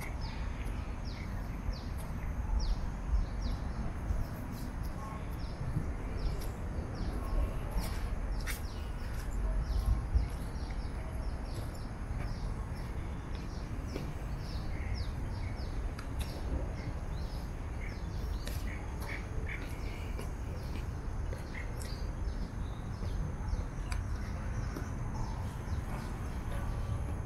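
Birds calling in short, repeated high chirps through the whole stretch, over a steady low rumble and a thin, steady high tone.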